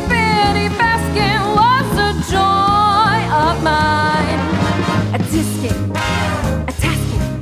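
Big band swing music: a singer's voice over brass and a steady bass line.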